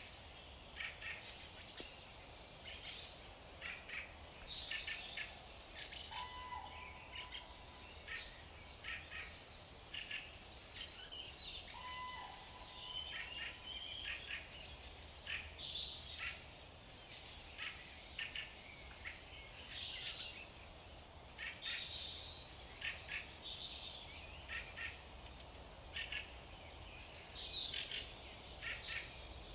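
Several birds chirping and singing, their calls overlapping in quick, irregular phrases, with the loudest high chirps in the second half.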